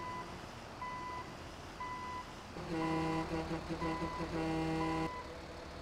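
A truck reversing alarm beeping steadily, one even beep about every second. A deeper, louder steady tone joins it for about two and a half seconds in the middle.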